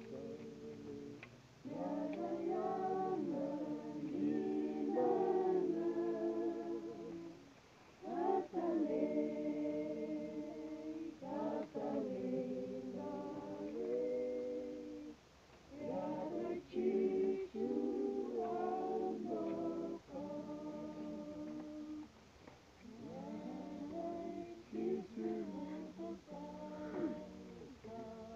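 A group of voices singing a hymn unaccompanied in harmony, in slow held phrases of a few seconds with short breaks between lines.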